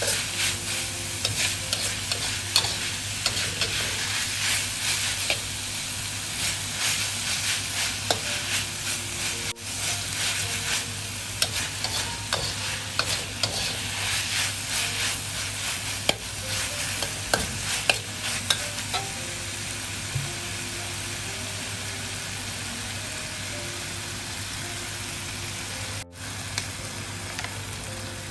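Naem (Thai fermented pork) and pork skin sizzling in a hot wok while a metal spatula scrapes and taps against the pan as it is stir-fried. The scraping is frequent at first and thins out in the last third, leaving mostly steady sizzle.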